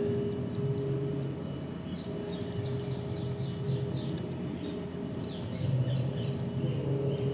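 Small birds chirping in quick runs of short, high, falling notes, over a steady low hum.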